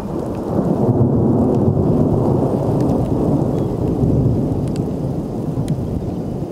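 A long rolling rumble of thunder from a supercell thunderstorm, slowly fading, with rain and a few scattered raindrop ticks.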